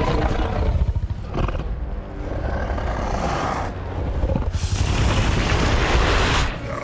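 Movie sound effects of a giant serpent monster rampaging: a heavy, continuous booming rumble with crashing noise. About four and a half seconds in a louder rushing whoosh rises as the creature's body sweeps past, then drops away near the end.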